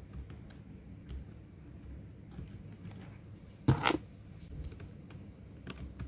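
Faint clicks and scrapes of a grease syringe and pick being worked into a mechanical keyboard's stabiliser housing, with one louder short scratchy noise about four seconds in.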